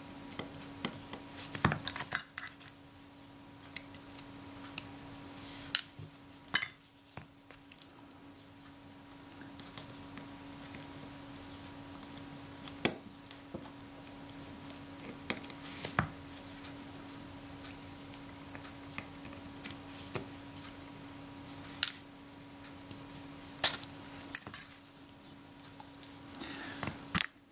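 Scattered small metallic clicks and clinks from a jeweller's screwdriver working the screws of a Synchro-Compur camera shutter's retard gear train, with tiny parts and tools being handled and set down. A faint steady hum runs underneath.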